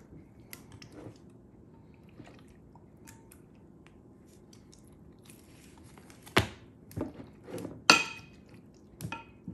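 Hands working thin raw beef slices into a wet marinade in a glass dish: quiet squishing and small clicks, then four sharp knocks in the second half, the third the loudest with a brief ringing.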